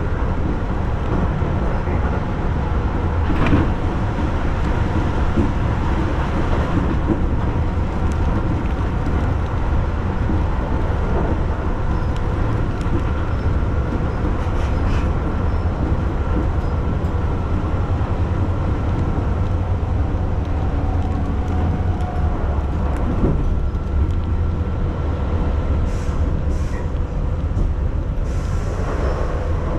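Inside a Keihan Line train car running between stations: a steady rumble of wheels on the rails with a faint steady hum and occasional clicks.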